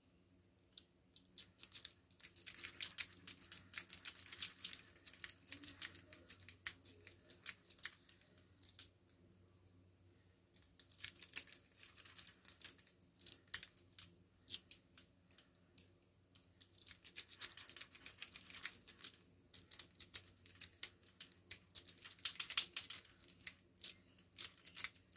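Lock pick rake scrubbing rapidly over the pins inside a small padlock's keyway, making fast metallic scratching and clicking. It comes in several runs of a few seconds each, with short pauses between them.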